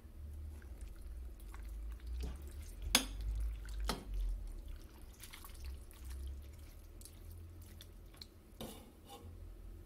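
Ladle scooping broth in a metal pot of nikujaga: liquid splashing and dripping, with a few sharp knocks of the ladle against the pot about three seconds in, again a second later, and near the end.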